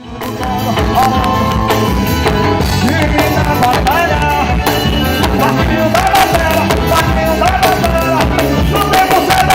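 Amplified gospel band playing, with a singer's melody over drums and bass, starting abruptly just after a cut.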